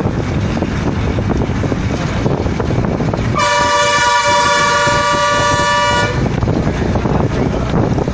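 A vehicle horn sounds one long blast of about two and a half seconds, a chord of several notes, over steady wind and road rumble from a moving vehicle.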